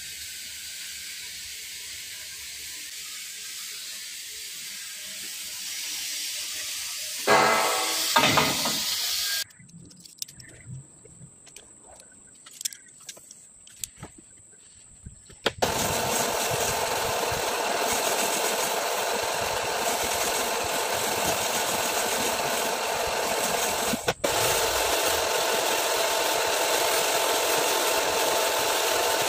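Drill press spinning a stone cylinder hone inside a liner of a Toyota 1KD engine block: a steady whirring grind of stones on the bore that starts abruptly about halfway through. It is preceded by a short loud burst a quarter of the way in and a quieter stretch of small clicks.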